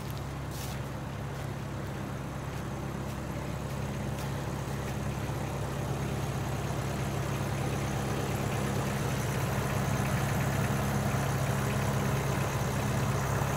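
Farm tractor engine idling steadily, growing louder toward the end.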